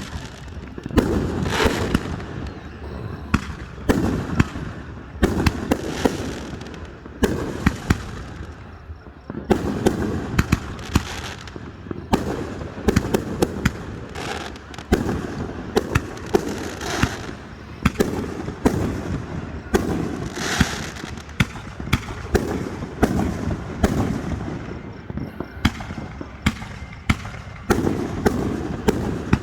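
Aerial fireworks display: shells bursting one after another, sharp bangs every second or so with crackling between them.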